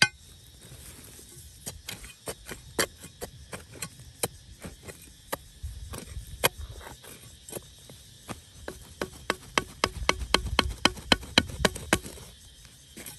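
Irregular sharp clicks and knocks, a few a second, like hard objects striking each other. A low rumble swells under them about halfway through and again towards the end.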